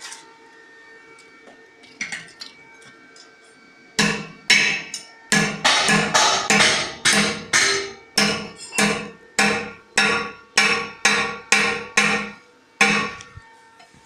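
A series of sharp, ringing strikes at a steady beat of about two a second, starting about four seconds in, each dying away before the next, with a short break near the end.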